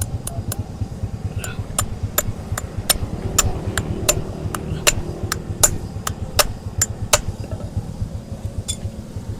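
Rapid sharp taps of a hammer, about three or four a second, during hoof trimming; they stop about seven seconds in, with one more tap near the end. A low, steady engine-like rumble runs underneath.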